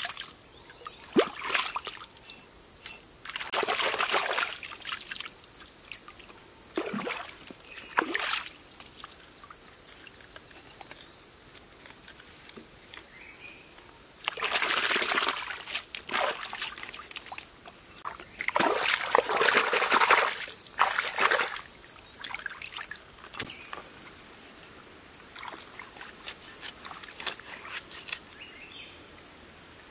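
Hands washing vegetables in a shallow stream: water splashing and sloshing in several bursts, the longest and loudest about two-thirds of the way in, with a few short clicks between them. A steady high hiss runs underneath.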